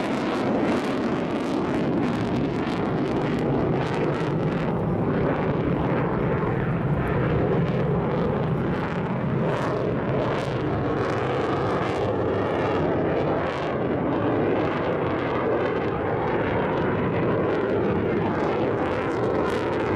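Jet noise from a JASDF F-15J's twin turbofan engines during a display: a loud, steady rumble with crackling through it.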